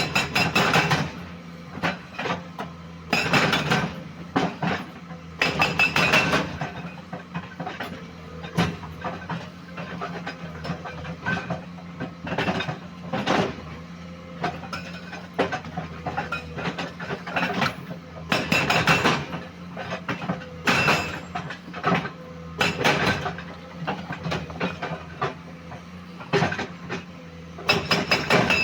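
Komatsu PC210 hydraulic excavator with its diesel engine running steadily. Every few seconds there are spells of loud metallic clanking and rattling, some as fast, even clicking.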